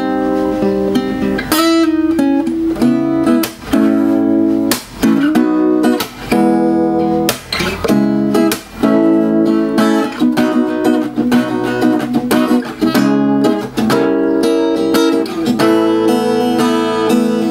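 Acoustic guitar played solo, picked and strummed chords, with a few short breaks between phrases, recorded on a Zoom H1 handheld recorder.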